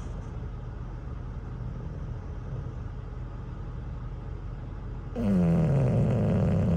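English bulldog snoring in deep sleep: one long, loud snore about five seconds in, falling in pitch, over a steady low hum.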